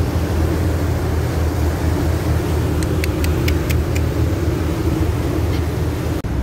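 Passenger ferry running under way: a steady low engine rumble mixed with wind and the churn of the propeller wash. About three seconds in comes a quick run of short sharp ticks, and the sound drops out for an instant near the end.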